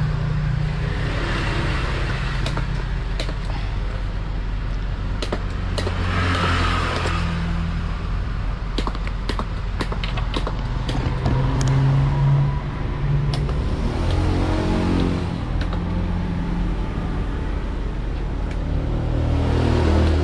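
Motor vehicle engines running and passing, with a low hum that shifts in pitch, and scattered sharp clicks and knocks throughout.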